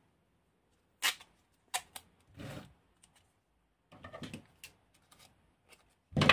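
Hand-work noise from taping up a battery pack: scattered clicks and short rasps as black electrical tape is pulled off its roll and torn, and as the plastic cell holders and wires are handled. The loudest rasp comes near the end.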